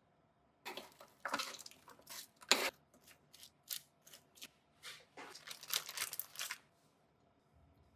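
A spoon stirring sliced vegetables on parchment paper in a metal sheet pan, rustling and scraping in short strokes about two a second. Near the end, a denser run of parchment paper crinkling as it is gripped and lifted.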